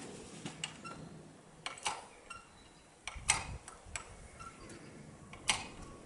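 A few irregularly spaced light clicks and taps, the loudest about three seconds in and another near the end.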